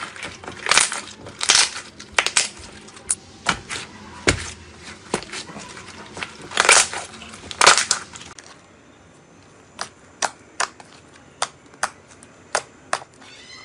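Slime squished and kneaded by hand, giving dense, irregular crackling pops and squelches. From about ten seconds in come separate sharp pops, roughly two a second, as the slime is pressed and poked.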